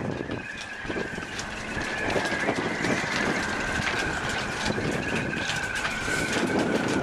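Small outboard motor on a sailboat's stern running steadily with a constant whine, mixed with wind rumbling and crackling on the microphone.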